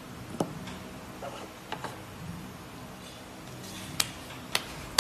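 Small bicycle headset parts (bearings and metal rings) set down one by one on a wooden table: about five short sharp clicks and taps, the two loudest near the end.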